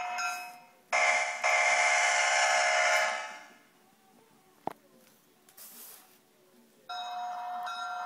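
Electronic diesel-locomotive sound effects: a locomotive bell ringing fades out, then an air horn sounds one blast of about two seconds, re-sounded once just after it starts, and dies away. After a pause broken by a single click, the bell starts ringing again near the end.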